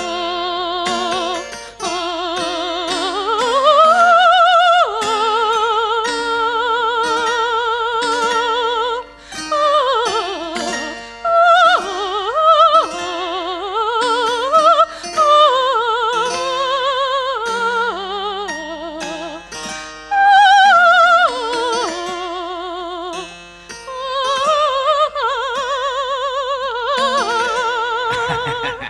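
A soprano singing an Italian-style aria with wide vibrato, held high notes and quick runs, accompanied by plucked harpsichord chords.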